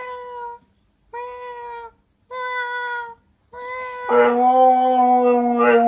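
Husky giving a run of short, even-pitched, meow-like calls about a second apart, then breaking into a much louder, long howl about four seconds in.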